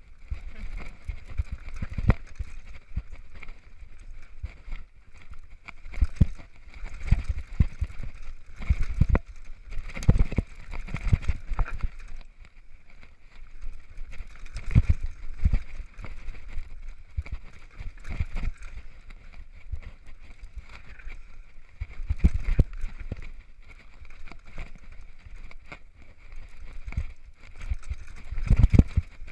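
Downhill mountain bike running down a rough dirt trail, heard close up from a camera worn by the rider: a steady low rumble broken by irregular knocks, clatter and thumps from the tyres and suspension hitting roots and rocks, coming in heavier clusters at times.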